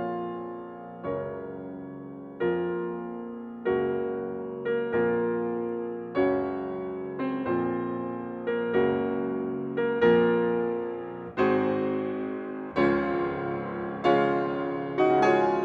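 Piano music: slow chords struck about every second and a quarter, each ringing and dying away before the next.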